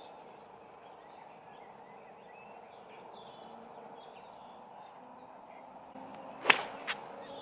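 Golf club striking a teed ball on a tee shot: one sharp crack of impact near the end, followed a moment later by a fainter click, over a faint steady outdoor hiss.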